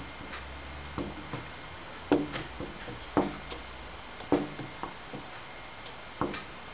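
Light knocks on wood, most of them in quick pairs, coming about once a second, with the loudest three in the middle.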